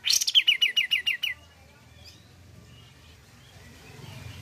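Kapas tembak bulbul singing a rapid burst of about eight sharp falling notes in a little over a second, loudest at the start.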